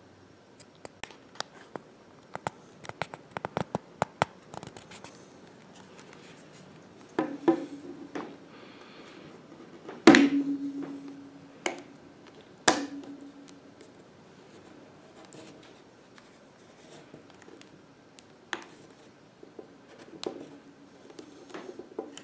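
Plastic pry tool working at the seam of a Microsoft Zune 30GB's case: a run of small clicks and scrapes, then several sharp snaps that ring briefly as the case is levered apart. The loudest snap comes about ten seconds in.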